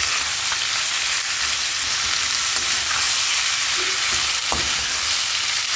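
Chopped bitter gourd and its peel sizzling as they fry in oil in a metal pan, with a spatula stirring through them. The sizzle is steady throughout, with one brief knock of the spatula a little past halfway.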